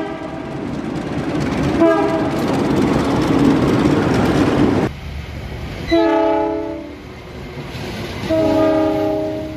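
A passing train's loud rumble and wheel noise, with a short toot of a locomotive horn about two seconds in. After an abrupt change about five seconds in, a locomotive's multi-chime Nathan K3LA air horn sounds two blasts of about a second each, the second near the end.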